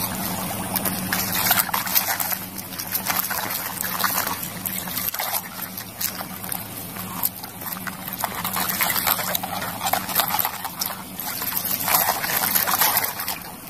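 Muddy water sloshing and splashing in a bucket as a hand swishes and scrubs toy excavators and trucks in it, in irregular bursts, over a faint steady hum.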